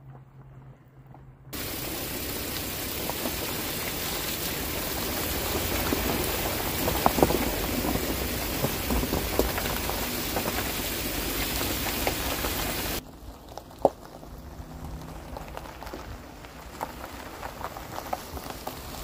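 Heavy rain falling steadily, a dense even hiss that starts abruptly near the start and cuts off abruptly about two-thirds of the way through. It gives way to a much quieter patter of scattered drops and ticks.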